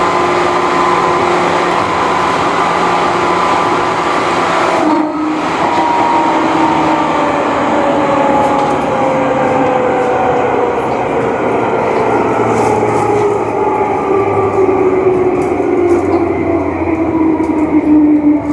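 Seibu New 101 series electric train's traction motors whining loudly over the running noise, the whine falling steadily in pitch as the train slows.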